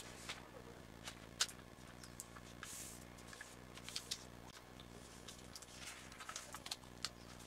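A sheet of A4 paper being folded and creased by hand: faint rustling with scattered crisp crinkles, the sharpest about a second and a half in, and a short sliding hiss near three seconds.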